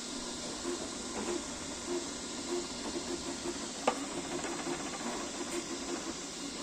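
Creality Ender-3 V3 KE 3D printer printing at half speed: its stepper motors whir in short, shifting notes over the steady hiss of its cooling fans. One sharp click comes about four seconds in.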